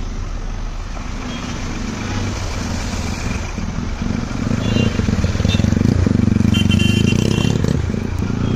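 A vehicle driving through a flooded street, its engine running with a low rumble that grows louder about halfway in.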